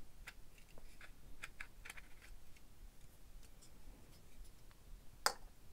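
Faint clicks and taps of hard plastic as the snap-on top cover is taken off a cordless vacuum's motor unit and handled, with one sharper click near the end.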